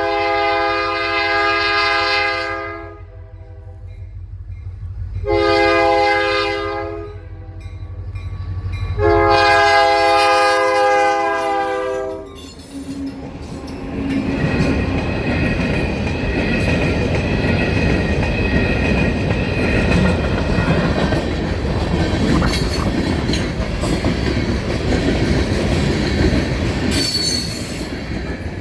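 Kanawha River Railroad freight locomotive's multi-chime horn sounding close by: a long blast, a short one and another long one, the end of the grade-crossing signal. The train then rolls past, its wheels clattering and squealing on the rails.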